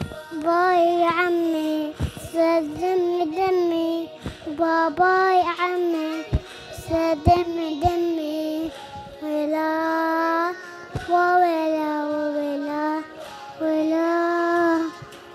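A young boy singing an Arabic song in short held phrases with wavering turns on the notes, pausing briefly between phrases.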